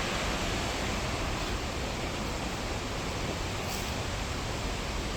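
Multnomah Falls: the steady, even rush of a large waterfall's falling water.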